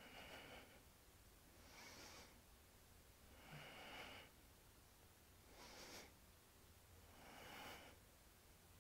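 Faint, rhythmic audible breathing, one breath about every two seconds, with inhales and exhales alternating, paced to a lying leg-pistoning exercise.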